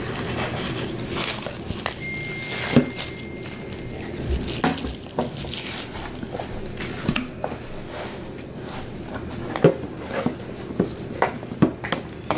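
An English bulldog moving about on its bed and handling rubber chew toys: scattered soft knocks, taps and rustles over room tone, with a thin high steady tone held for about two seconds near the start.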